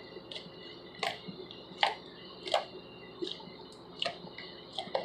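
Stretchy homemade slime being poked with the fingers in a poke test, making a string of short, sharp clicks and pops, about six, spaced roughly evenly.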